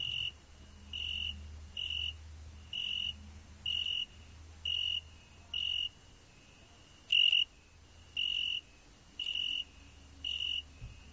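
A cricket chirping, short high chirps repeated steadily about once a second, one about seven seconds in louder than the rest, over a low hum.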